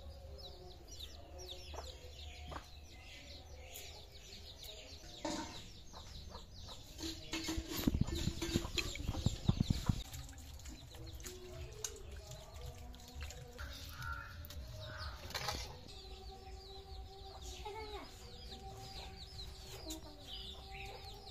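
Chickens clucking, with small birds chirping. Around the middle there is a run of louder knocks and handling noise.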